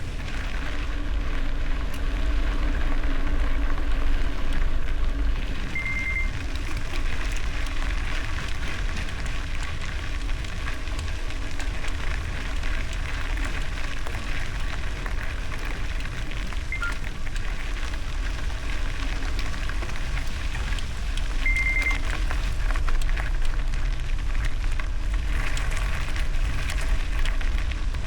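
Bicycle tyres rolling over gravel with a steady crackling crunch, under low wind rumble on the microphone. Two short high beeps sound, about 6 seconds in and again about 21 seconds in.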